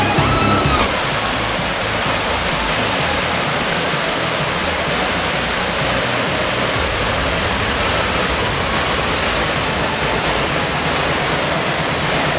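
Steady rushing of a waterfall cascade in a mountain gorge. A music track fades out in the first second.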